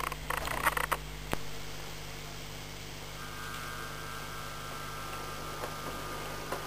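Model railway train rattling and clicking over the track close by for about the first second, then a sharp click and a steady electrical hum. From about three seconds in, a thin whine from the electric motor of an approaching model diesel locomotive.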